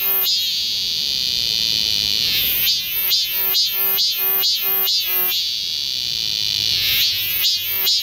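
A cicada singing loudly. Runs of short, shrill pulsed calls at about two a second alternate with a long, steady drone of about two seconds, twice over.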